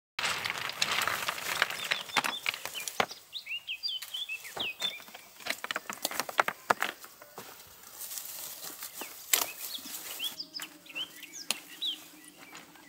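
Rustling of pumpkin vines and leaves being handled, with many sharp clicks and knocks from loose stones, while small birds chirp in two short spells. A faint low hum comes in near the end.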